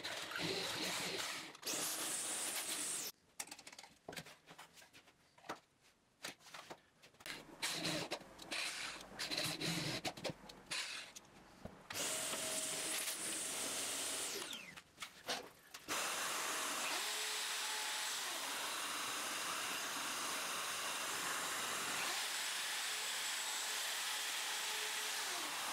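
Cordless drill turning a 19 mm carbide-tipped Forstner bit in a drill guide, boring dog holes into a hardwood workbench top. The sound comes in several short stretches with quiet gaps between them, and runs steadily through the second half.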